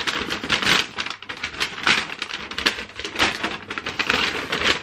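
A large folded paper instruction leaflet being unfolded and opened out, rustling and crackling in quick, irregular bursts.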